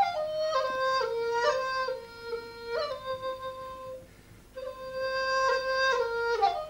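Background music: a solo flute playing a slow melody of held notes, with a brief pause about four seconds in.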